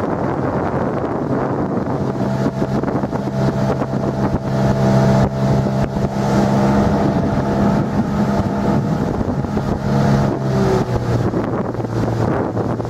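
9.9 hp Tohatsu outboard motor running at a steady pitch, heard from about two seconds in until near the end, under heavy wind buffeting on the microphone.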